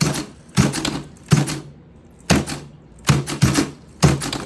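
Redcat 1959 Impala RC lowrider hopping on a wooden tabletop: its suspension servos whirr briefly and the car knocks down hard on the wood, about seven times at an uneven pace.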